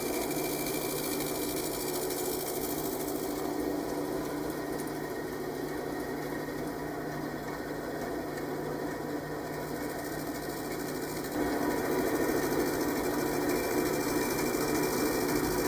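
A small electric tool running continuously, its motor humming steadily, getting louder about two-thirds of the way through and stopping just before the end.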